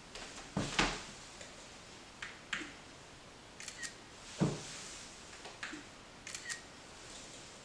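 Smartphone camera shutter firing, a quick double click every couple of seconds as photos are taken by remote. Two louder soft thumps come about a second in and halfway through.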